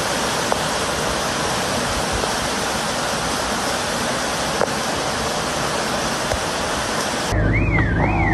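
Swollen floodwater rushing loudly and steadily. Near the end it cuts abruptly to a siren wailing up and down about twice a second over a low hum.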